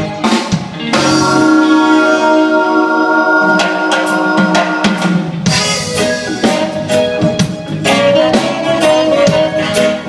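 Live band playing with a drum kit, drum hits all through. A chord is held for several seconds in the first half, then the band plays on in rhythm.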